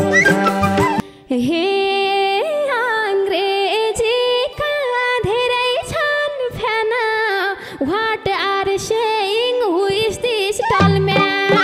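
Female voice singing a long, ornamented folk melody almost unaccompanied, with wavering turns in pitch. Before this the band and madal drum are playing; they drop out about a second in and come back near the end.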